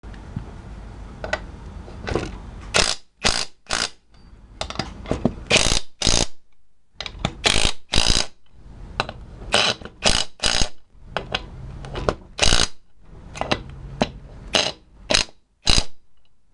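Ratchet head of a torque wrench clicking in quick back-swing bursts as lug nuts are tightened, with short pauses between strokes.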